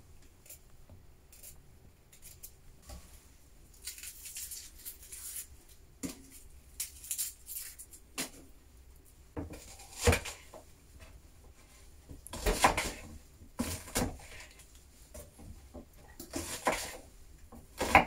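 Hand food preparation: a knife cutting and tapping on a wooden board, with clay bowls and wooden dishes being handled. It comes as irregular short knocks and scrapes, a few of them louder.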